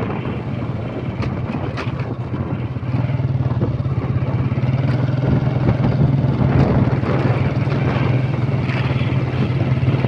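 Motor vehicle engine running steadily, a constant low drone with a noisy hiss over it.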